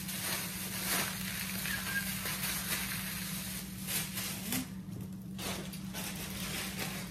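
Butter and olive oil sizzling under a grilled cheese sandwich in a nonstick frying pan, with a few sharp clicks over it and a steady low hum.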